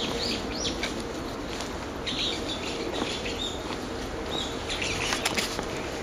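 Wild woodland birds calling: short, high, downward-slurred notes, three in quick succession at the start and more scattered through the rest, over a steady rustling noise, with a few sharp clicks a little after five seconds in.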